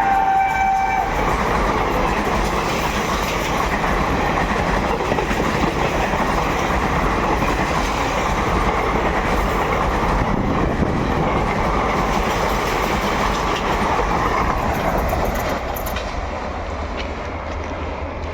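WAP-4 electric locomotive's horn sounding and cutting off about a second in, then the steady rumble and wheel clatter of the train's coaches running past, fading near the end.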